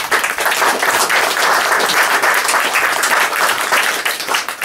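Audience applauding, a roomful of people clapping their hands together.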